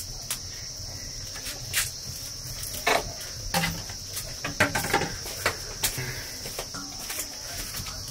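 Steady high-pitched drone of insects, crickets or similar, with scattered short knocks and clatters of a cooking pot, a plastic basin and firewood being handled at a wood-fired clay hearth.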